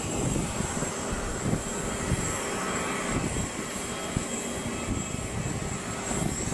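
Steady jet aircraft noise: a constant high whine over an uneven low rumble.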